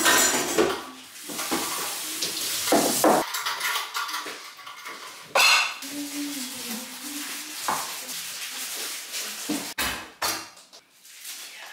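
Kitchen clatter: bowls, a tin and utensils knocking and clinking as they are handled and set down on a countertop, in irregular sharp knocks.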